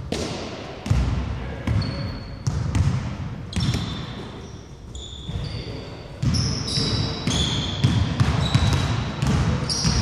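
Basketball bouncing on a wooden court with irregular thuds, and sneakers squeaking sharply on the floor in short chirps, more often in the second half, in a large reverberant hall.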